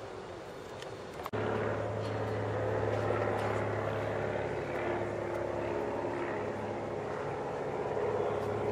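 A steady engine drone with a low hum, starting abruptly about a second in.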